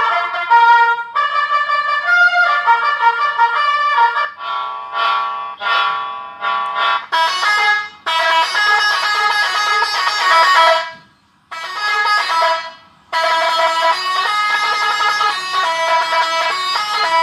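Electronic basuri (telolet-style) vehicle horn played through a TOA horn speaker, sounding loud brass-like horn tones that change note in melodic phrases. The tune plays in bursts with short breaks, dropping out briefly about eleven seconds in.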